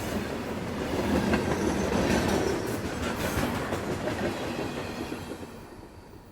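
Train wheels clattering over the rail joints, the rhythmic clickety-clack (traqueteo) of metal wheels on the track, over a steady rumble with scattered sharp clicks. The sound fades away from about five seconds in.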